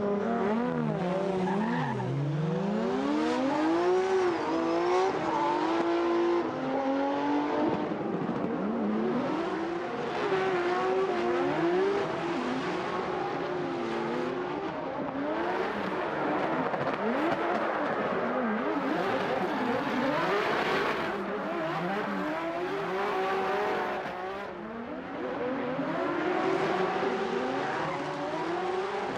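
Two drift cars in a tandem run, engines revving hard, their pitch climbing and falling again and again as the throttle is worked through the slides, over the hiss and squeal of spinning rear tyres.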